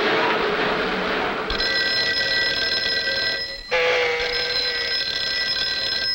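A desk telephone ringing. The ring starts about a second and a half in, pauses briefly just past halfway, then rings on. A rushing noise comes before it.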